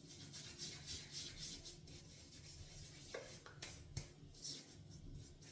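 Faint strokes of a synthetic shaving brush rubbing and scraping across a tallow shaving-soap puck, gathering up the loaded paste, about two to three strokes a second at first, then a few light clicks about three and a half and four seconds in.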